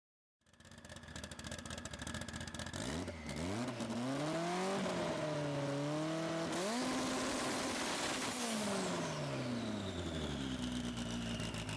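Car engine revving up, holding, then falling back and settling to a steady idle, with a high whistle falling away as the revs drop.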